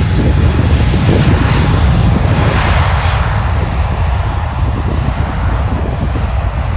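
Airliner engines roaring loudly as an aircraft passes the microphone, loudest about two to three seconds in and then slowly easing, over a low wind rumble on the microphone.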